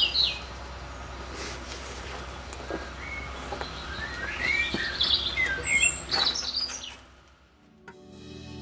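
Wild birds chirping and singing in a series of short calls over a steady low rumble, fading out about seven seconds in; gentle music begins just before the end.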